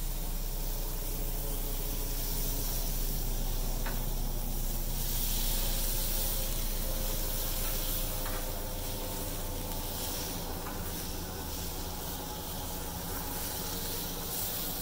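Thinly sliced steak sizzling on a Blackstone flat-top griddle, a steady frying hiss that swells about five seconds in.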